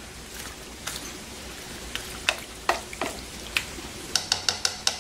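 Plastic spoon pressing and stirring saucy penne pasta in a slow cooker crock, with a soft wet squelch and irregular clicks and taps, a quick run of them near the end.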